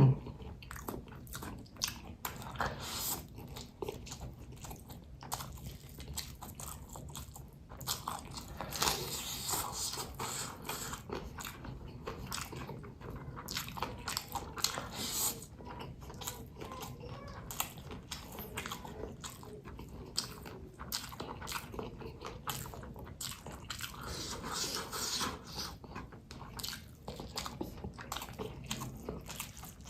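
Close-up eating sounds: a person biting and chewing a meal of fried smashed chicken, rice and large chilies, with many short, irregular crunches and wet chews.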